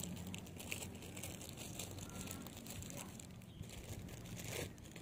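Faint rustling and crackling handling noise, over a low steady hum.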